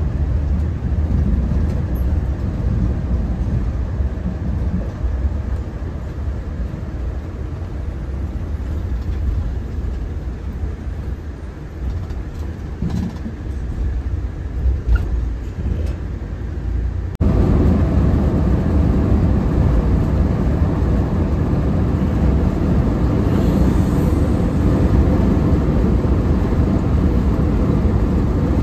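Bus running on the road, its engine and road noise heard as a steady rumble from inside. About 17 seconds in, the rumble jumps abruptly to a louder, brighter noise.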